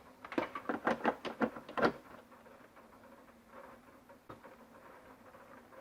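A quick run of light clicks and taps from small objects being handled at a bench, about a dozen in the first two seconds and one more a couple of seconds later, over quiet room hiss.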